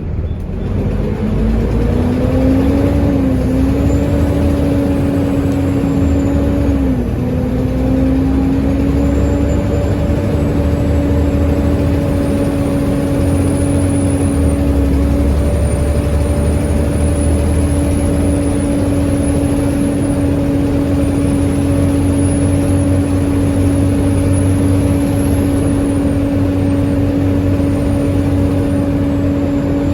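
Volvo B7TL bus under way with its ZF gearbox drivetrain whining in constant 'hoover' mode, a sign of a tired, clapped-out bus. The whine rises as it pulls away in the first second or two, dips briefly about seven seconds in, then holds steady over a low rumble, with a loud high turbo whistle wavering above it.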